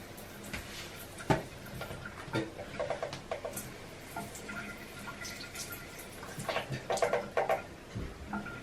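Water splashing at a bathroom sink with scattered short knocks and clinks, as at the rinse after brushing teeth.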